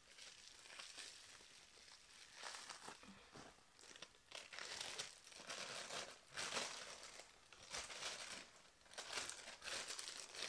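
Bubble wrap being unwrapped by hand, faintly crinkling and rustling in repeated irregular bursts.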